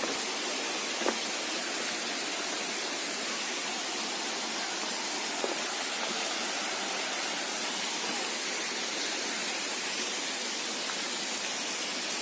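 Steady rushing hiss of falling water from the Bhimlat waterfall, with a faint tick or two.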